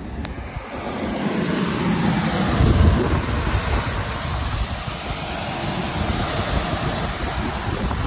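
A ship's bow wave, seawater rushing and breaking white along the bow, with wind buffeting the microphone. It grows louder over the first couple of seconds, then holds steady.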